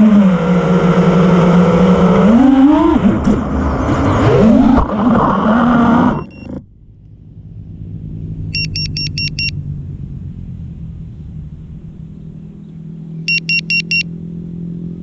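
FPV quad's four T-motor F40 2306 2600kv brushless motors with Ethix S4 props, whining with a pitch that rises and falls with the throttle, then cutting out suddenly about six seconds in as the quad crashes into vegetation. After that there is a low steady hum, and twice a quick run of five high electronic beeps.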